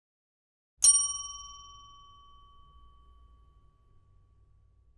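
A single bright bell-like chime, struck once about a second in and ringing away over some three seconds, with a faint low hum beneath it: the end-card logo sting.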